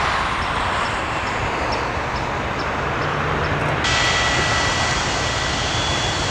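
Boeing 727's three rear-mounted Pratt & Whitney JT8D jet engines running loud and steady on the runway, a dense rushing roar. From about four seconds in, a high whine sits over it.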